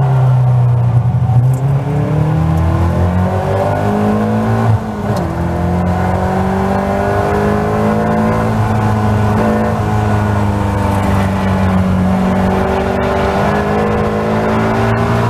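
Caterham Seven race car's engine, heard from on board, accelerating hard out of a slow corner. Its pitch climbs, drops sharply about five seconds in at an upshift, then rises again and stays at high revs with small dips.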